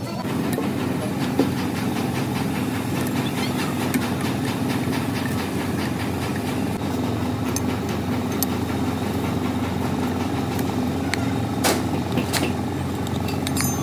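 A machine running steadily with a low hum, with a few sharp clicks, two of them near the end.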